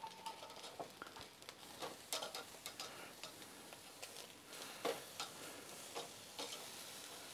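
Denver cut beef steaks sizzling faintly on the steel grate of a Napoleon gas grill's Sizzle Zone burner, with many short clicks of metal tongs on the grate as the steaks are turned.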